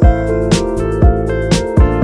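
Background music with a steady beat, about two beats a second, over held keyboard-like tones.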